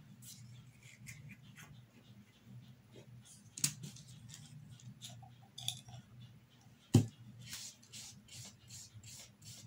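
Small handling clicks as a jar of paint is opened, a knock about seven seconds in as the jar is set on the table, then a paintbrush brushing black paint onto cardboard in short strokes, about two or three a second.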